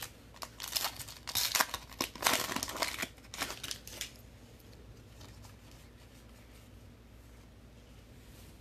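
Foil trading-card pack wrapper crinkling and tearing, in a quick flurry over the first few seconds, then falling away to quiet.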